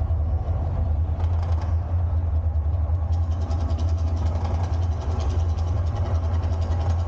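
Deep, steady rumble of the Mirage volcano show's sound effects, with a fast crackling rattle joining about three seconds in.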